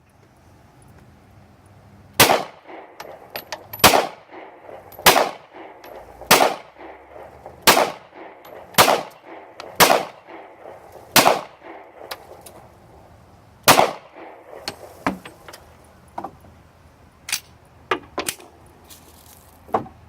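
A .40 S&W handgun firing nine shots at a steady pace of about one a second, with a slightly longer pause before the last. Several lighter clicks and clanks follow near the end.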